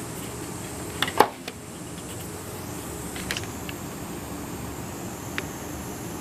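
Handling noise as a steel rule is set against a plywood box: two sharp clicks about a second in, then a few faint ticks, over a steady background hum.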